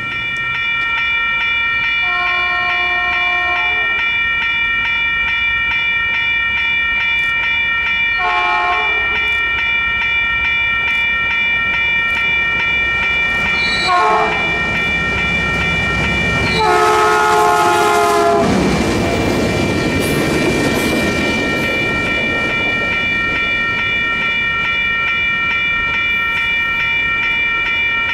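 Diesel work-train locomotive JPBX 503 sounding its horn four times, long, short, short, then a longer final blast, as it approaches. It then rumbles past with its loaded cars about two-thirds of the way through. A steady high-pitched ringing of several tones runs underneath throughout and cuts off abruptly at the end.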